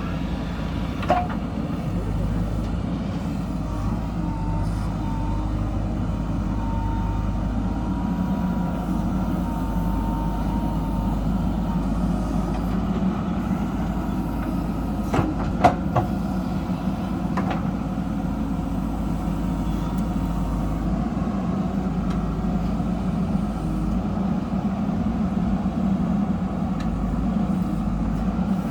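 Diesel engine of a JCB backhoe loader running steadily under work. A few sharp knocks cut through it: one about a second in, and a close pair a little past halfway.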